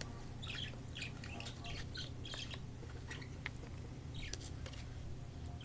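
Plastic lanyard string squeaking and rustling against the fingers as the strands are pulled and straightened: a string of short, irregular squeaks and scratches.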